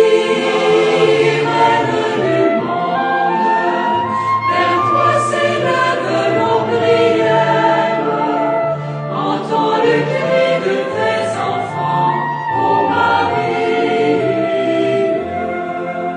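Choir singing a slow hymn, several voices in harmony on long held notes.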